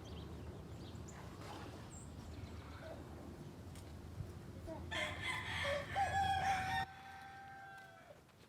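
A rooster crows once, starting about five seconds in and lasting about three seconds, its last note held and trailing off. Under it a steady low rumble stops abruptly just before the crow ends.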